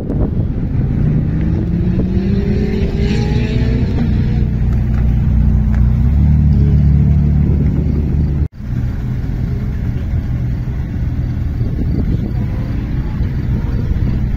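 Sports car engines running as cars pull slowly past: one engine revs up with a rising pitch about two to four seconds in, then settles into a deep low rumble. The sound cuts out abruptly a little past halfway, then resumes with steady low engine running.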